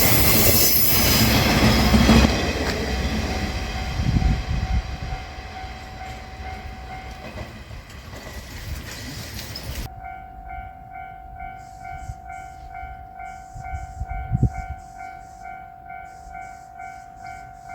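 JR Shikoku 1500 series diesel railcar passing over a level crossing, its engine and wheels loud at first and then fading as it pulls away. The crossing's electronic warning bell rings at about two to three strikes a second and is heard clearly once the train has gone.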